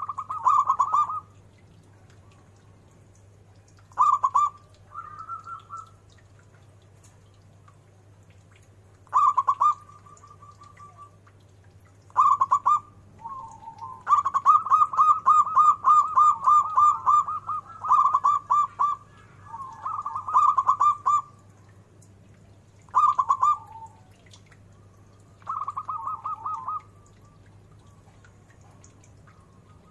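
Zebra dove (perkutut) cooing in repeated phrases of rapid staccato notes, about ten phrases with pauses between them, the longest running about three seconds near the middle. A faint low hum sits underneath.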